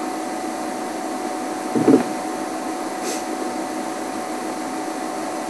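Steady hiss with a faint constant tone underneath, and a brief low sound about two seconds in.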